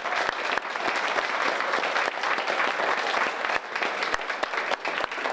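A roomful of people applauding, many hands clapping in a dense, steady patter.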